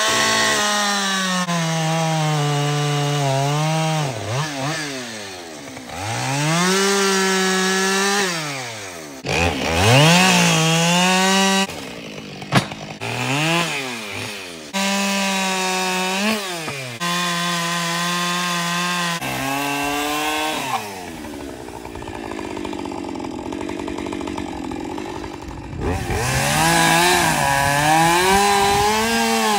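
Chainsaw running and cutting into wood, its engine pitch sagging under load and rising again as it is revved. The sound changes abruptly every few seconds, as if spliced from several short clips.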